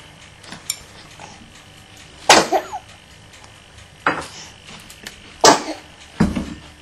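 Kitchenware being handled on a cutting board while a sandwich is plated: four sharp knocks and clacks, the first about two seconds in and the loudest, the last near the end duller and heavier.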